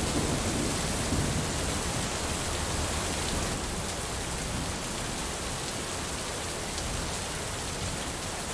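Steady rain falling, a continuous even hiss that grows slightly quieter toward the end.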